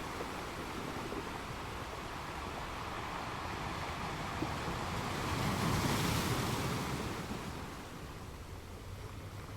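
Ocean surf washing in a steady noise, swelling to a peak about six seconds in and then easing off.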